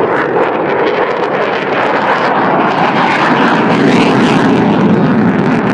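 Airplane flying low past the airfield, its engine noise a loud, steady rush that grows deeper in the second half.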